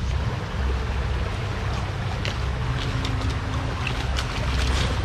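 Small rocky creek running, with the low, uneven rumble of the jostled camera microphone underneath. From about two seconds in, short crackles of rhododendron branches and leaves brushing and snapping as they are pushed aside.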